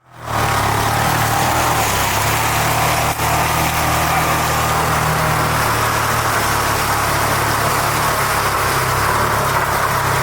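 A motor vehicle's engine running steadily with road noise, as heard riding along, with a brief tick about three seconds in.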